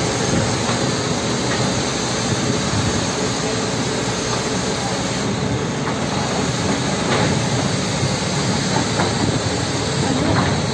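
Kobelco SK200 hydraulic excavators' diesel engines running under load as one machine digs and lifts a bucket of mud, a steady mechanical din with a few faint clanks.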